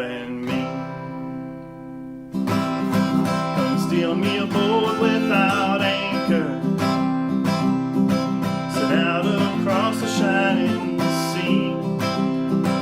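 Music: an instrumental break on acoustic guitar. A chord rings and fades, then steady strumming comes back in about two seconds in, with a melody line over it.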